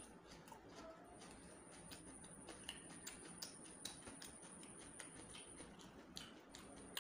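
Quiet mouth sounds of eating by hand: soft wet clicks and smacks of chewing, scattered irregularly, along with a hand tearing roti and scooping curry. A faint, steady high-pitched whine runs underneath and drops out for about a second near the end.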